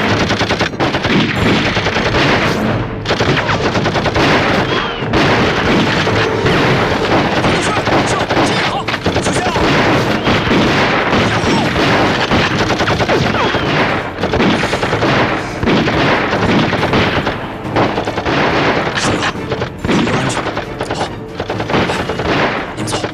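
Heavy exchange of gunfire: a machine gun firing in rapid bursts mixed with rifle shots, without a break. Near the end the firing dies down.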